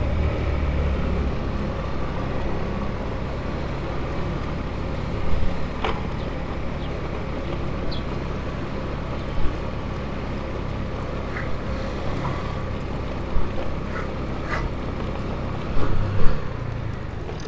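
Motorcycle engine running steadily while riding, a low even hum, with a few short knocks along the way.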